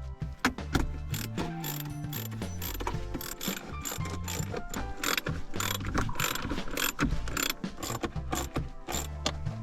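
Background music with a stepped bassline, overlaid by rapid mechanical ratcheting clicks.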